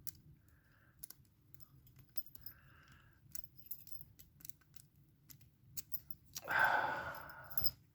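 Light metal clicks and scratches of a rake pick working in a cheap cast-metal padlock, the lock core being pulled out with the rake rather than turning. A louder rasping noise lasts about a second near the end.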